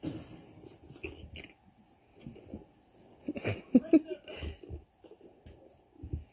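Young puppies playing: scuffling and scratching on a fleece blanket, with a few short high puppy vocalisations about halfway through.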